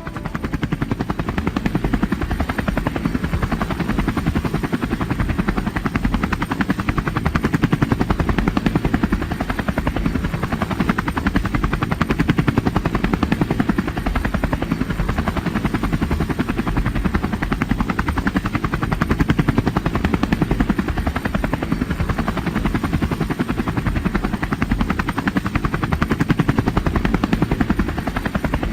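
Loud, steady mechanical running noise with a fast, even pulse.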